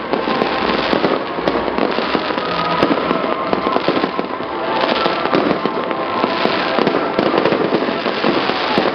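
Aerial fireworks display: a dense, unbroken run of sharp cracks and bangs with crackling from bursting shells.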